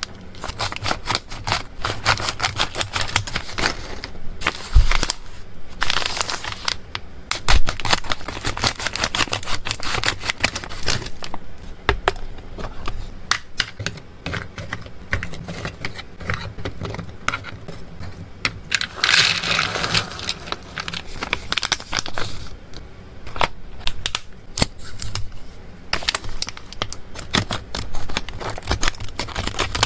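Close-up handling of plastic pet-treat packaging: crinkling foil pouches, and small dry freeze-dried treats clicking and tapping into a plastic storage box as they are placed with tongs. A longer rustle comes about 19 seconds in, and near the end scissors snip open a plastic pouch.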